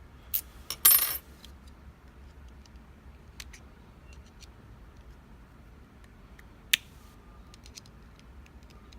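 Small metallic clicks and a short rattle from an Abus E20 padlock and its key being handled, crowded into the first second or so, then a few faint scattered ticks and one sharp click about three-quarters of the way through.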